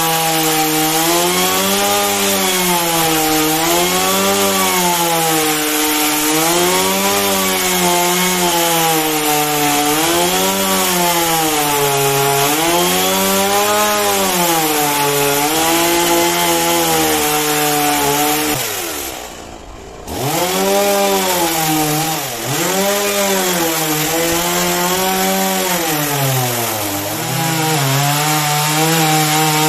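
Two-stroke chainsaw cutting into a large block of wood, its engine pitch rising and falling every second or so as the bar bites and eases. About two-thirds of the way through the engine drops to a low idle and revs back up, and near the end it runs at a steadier, lower pitch.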